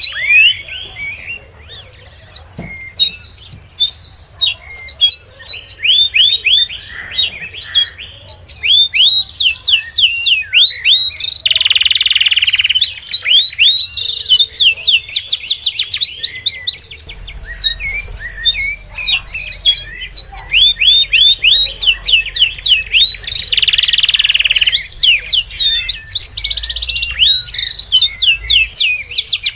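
Small birds chirping continuously in rapid runs of short, sweeping high notes, several birds overlapping. A few harsher, noisier calls break in now and then, and the chirping is thinner for the first couple of seconds.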